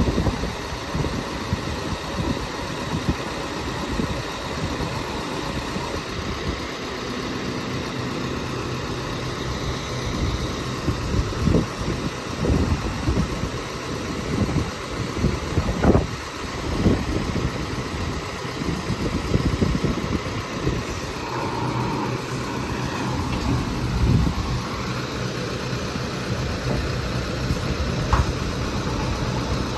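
Boom truck's engine running steadily to drive its hydraulic crane while a load is lifted and set down, with a steadier hum coming in twice as the crane levers are worked. A few sharp knocks stand out along the way.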